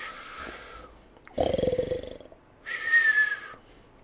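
Mock snoring: a rattling snore on the in-breath about a second and a half in, then a whistling out-breath, in the cartoon snore-and-whistle pattern.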